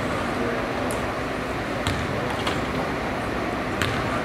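Steady murmur of a gymnasium crowd, with a few sharp knocks scattered through.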